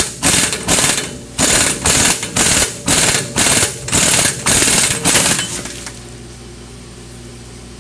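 Pneumatic impact wrench hammering on a screw-type hub puller in about a dozen short trigger bursts, working to pull a Willys Jeep's rear brake hub off the axle shaft. The bursts stop a little past halfway, leaving a faint steady hum.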